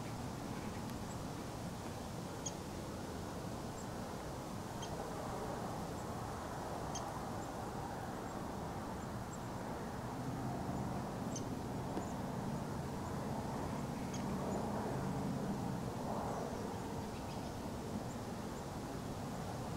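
Outdoor background with a steady low rustling haze and faint, short high chirps every couple of seconds. A faint low hum swells in the middle.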